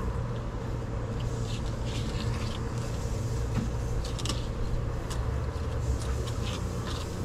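A steady low mechanical hum throughout, with short scraping strokes of a fillet knife cutting along a pomfret's tough, scaly skin.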